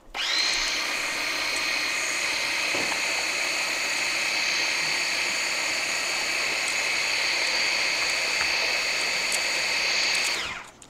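Electric kitchen grinder blending a fresh mango chutney of mango, pepper, garlic and sugar. The motor spins up with a quick rising whine and runs steadily at high speed for about ten seconds, then winds down and stops near the end.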